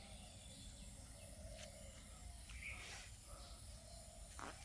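Faint outdoor ambience: a steady high hum of insects, with a few brief faint bird chirps over a low rumble.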